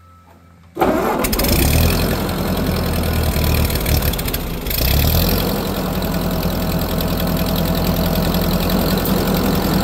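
Ford 2N tractor's four-cylinder flathead engine starting up about a second in and running loud and steady through a new upright exhaust stack. Its sound dips briefly a little before the middle, then picks up again.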